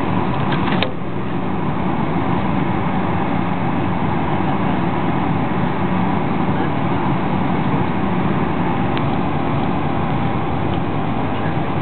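Airliner cabin noise on final approach: the steady rush of jet engines and airflow heard inside the cabin at a window seat over the wing. A brief click about a second in, after which the noise is slightly quieter.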